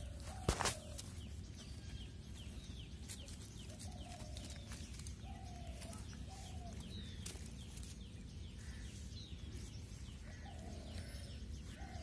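A sharp knock about half a second in, then a handful of short, low animal calls spaced a second or more apart, with faint bird chirps over steady outdoor background noise.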